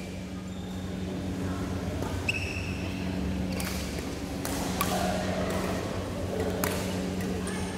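Badminton play on a hall court: several sharp racket strikes on a shuttlecock in the second half, and short squeaks of court shoes on the floor, over a steady low hum.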